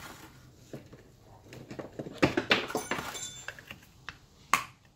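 Fingers picking and scraping at the metal lid of a small can to pry it open: a run of small clicks and taps, busiest about two to three seconds in, with one sharp click near the end.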